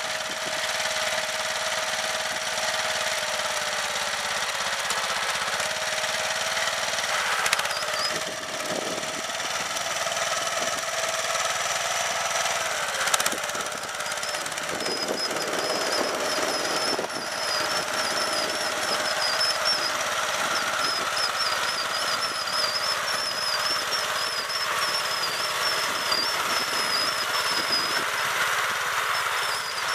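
Snapper LT11 riding lawn tractor's engine running steadily as the tractor pushes a front plow blade through a thin layer of snow. A high wavering whine joins in about a quarter of the way through, and there is one sharp knock near the middle.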